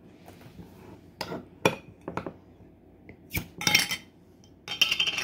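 Glass Ball mason jar being opened by hand, its metal screw band and lid unscrewed and lifted off: a string of sharp clicks and clinks of metal on glass, then two short bursts of scraping clatter in the last second and a half.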